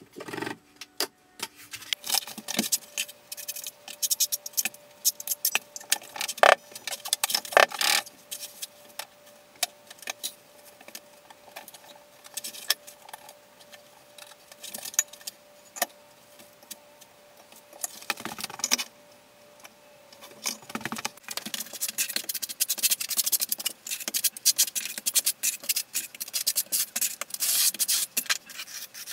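Hand work setting marble tile: scattered clicks, taps and rattles as tiles are pressed and adjusted, then about eight seconds before the end a notched trowel starts scraping thinset across the tub apron.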